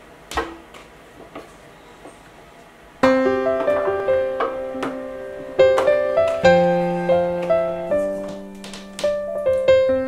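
A light knock just after the start, then gentle background piano music begins about three seconds in, a simple melody over held lower notes.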